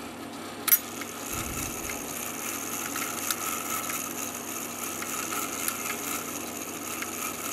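Hermle 1161-853 grandfather clock movement running its strike train to strike the hour: one sharp click under a second in, then faint light mechanical clicking over a steady hum.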